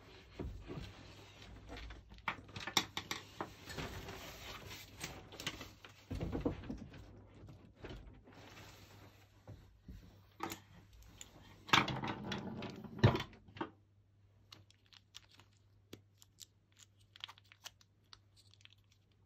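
Hands handling a plastic UK three-pin plug and braided fabric lamp cable: rustling cable and small plastic clicks, with louder knocks and clatters of the plug and tools on the bench about twelve seconds in, then only faint clicking.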